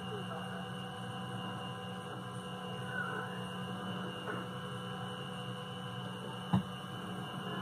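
A steady electrical hum, with faint wavering sounds in the background and one sharp knock about six and a half seconds in.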